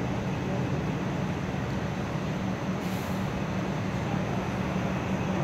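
Steady hum of an electric commuter train standing at the platform, with a brief faint hiss about three seconds in.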